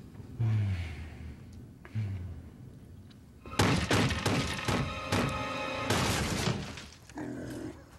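Two dull knocks on a motel room door, then from about three and a half seconds in a loud, rapid pounding on the door that sets its chain lock rattling, over dramatic music.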